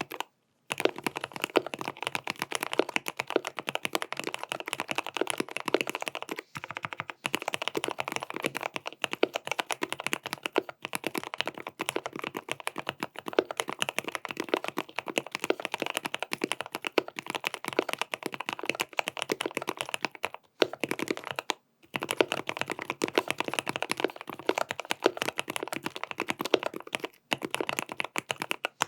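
Fast, continuous typing on a GMMK PRO custom mechanical keyboard with stock Gateron North Pole switches and cherry-profile PBT keycaps. The board is tape-modded and holee-modded and fitted with switch pads. The keystrokes come in quick runs, broken by a few short pauses.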